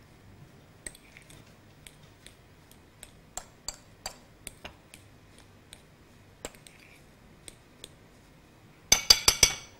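Metal spoon stirring mashed potato in a glass bowl: soft squishing, with light clicks as the spoon touches the glass. Near the end comes a quick run of louder, ringing clinks.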